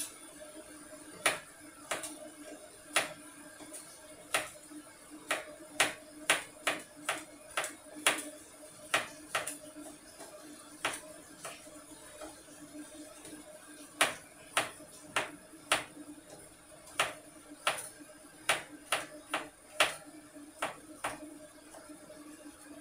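Kitchen knife chopping vegetables on a plastic cutting board: irregular sharp knocks, one to three a second, with a short lull about halfway.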